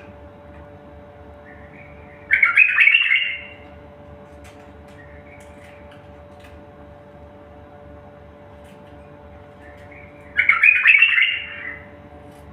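A songbird singing: two loud, dense bursts of song roughly eight seconds apart, the first about two seconds in and the second near the end, with soft quiet warbling between them. A steady low hum runs underneath.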